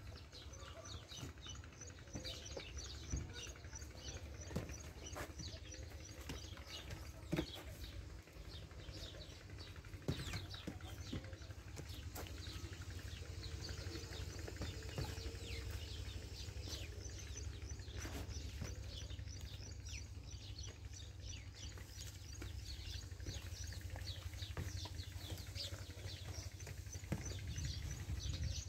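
Many small birds chirping in a busy, continuous twitter, over a steady low rumble with a few short knocks.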